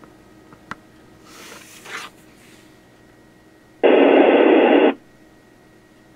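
Communications receiver's speaker between dispatch calls on a low-band FM channel: a loud burst of rushing radio noise lasting about a second begins about four seconds in, over faint steady hiss with an occasional click.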